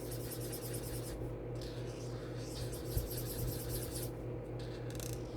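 Rapid back-and-forth scribbling of a coloring tool on paper as a small picture is colored in, pausing briefly twice. A steady low hum runs underneath.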